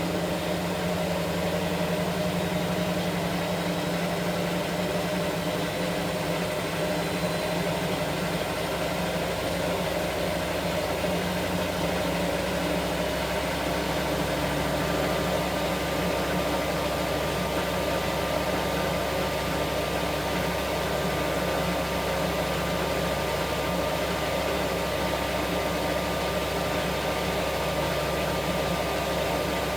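Washing machine running: a steady motor hum with a whooshing drum noise over it, the low hum shifting about twelve seconds in.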